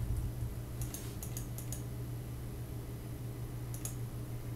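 Light clicks from a computer keyboard and mouse: a quick run of about five clicks about a second in and a couple more near the end, over a steady low hum.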